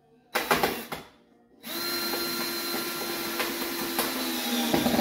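Cordless drill working on camper siding: a short burst about a third of a second in, then the motor runs steadily for about three seconds, its pitch dropping slightly near the end.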